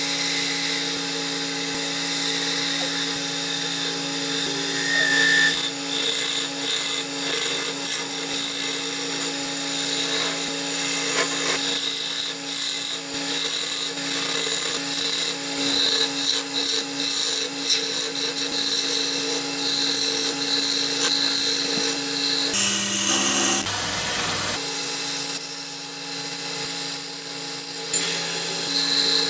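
Wood lathe running with a steady hum while a turning chisel cuts the spinning wooden goblet blank, giving a rough scraping hiss that comes and goes as the tool bites.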